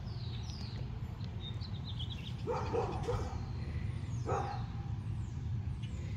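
A dog barking: three quick barks about two and a half seconds in and one more a little under two seconds later. Birds chirp faintly in the background.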